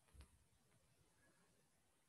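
Near silence: room tone, with one faint tap near the start.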